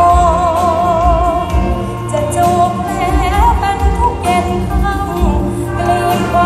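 A Thai luk thung band plays live through PA speakers, with a singer holding a note in wide vibrato at the start and then moving on to the next sung phrase. Underneath runs a steady drum and bass beat.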